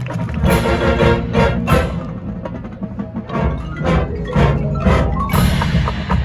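High school marching band playing its field show: sustained low brass and wind chords under rhythmic percussion, with pitched mallet strikes like marimba and sharp woodblock-like clicks.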